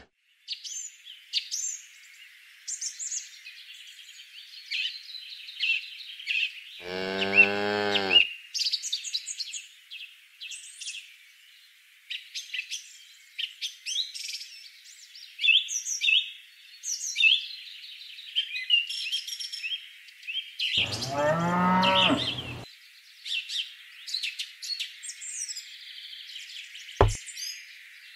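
Cattle mooing twice, each a long low moo of about a second and a half, over constant busy high-pitched chirping. A single sharp knock near the end.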